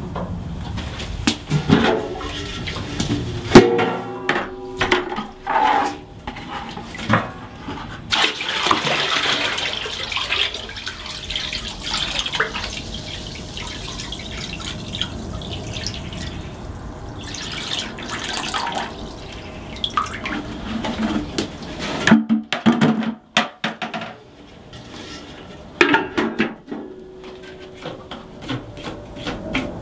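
Water pouring and splashing into the cooling-water tank of a Lister 6/1 CS diesel engine, heard as a steady rush through the middle of the stretch. Metallic clanks and knocks from the brass water cocks and pipe fittings being handled come before and after it.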